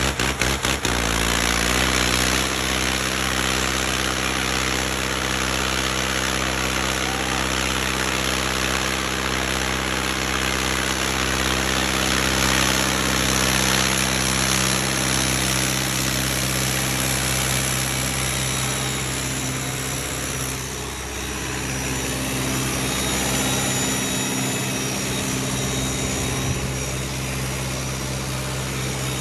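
Diesel engine of a Hindustan 60 tractor running. It starts with distinct, slow, even firing pulses, then about a second in picks up to a steady, faster run. About twenty seconds in it briefly dips and changes note, then settles again.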